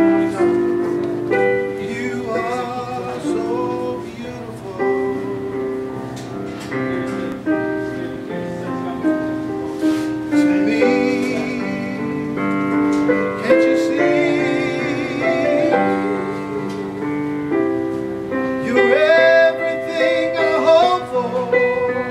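A solo voice singing a slow, operatic-style song with vibrato on its held notes, over musical accompaniment.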